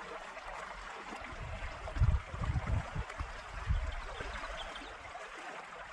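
Water flowing steadily in a small concrete-lined canal, with a few low thumps about two seconds in.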